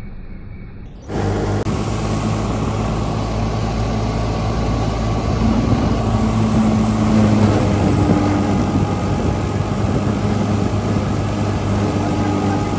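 Clayson 8080 combine harvester running steadily under load, its engine humming low beneath the rattle and whine of the machinery, starting abruptly about a second in.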